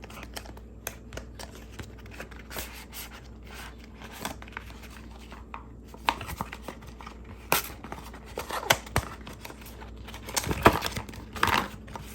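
A small retail box being opened and unpacked by hand: cardboard and paper rustling and crinkling, with tearing and scattered sharp clicks, busier and louder in the second half.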